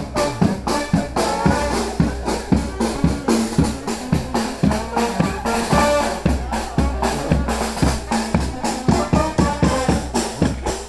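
Marching brass band playing a parade tune, with horns over a steady drum beat.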